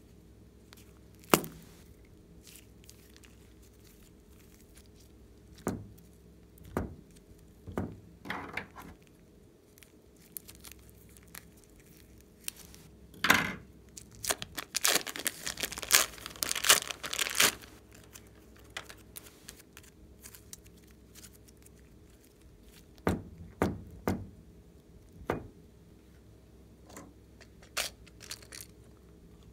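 Plastic piping bag of clay being handled and torn open, the clay squeezed out onto glossy slime: scattered crinkling snaps of thin plastic, with a dense stretch of crinkling and tearing about halfway through.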